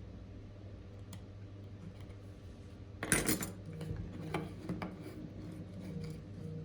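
Small metal tools or parts clinking and clicking on a hard work surface, with a loud cluster of clinks about three seconds in and scattered clicks after, over a steady low electrical hum.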